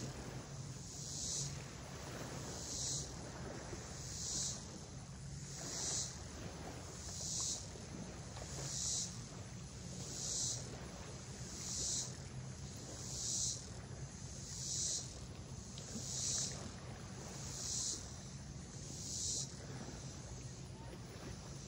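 An insect calling in a regular series of high buzzes, one about every second and a half, each swelling and then cutting off; the series stops near the end. A steady low hum runs underneath.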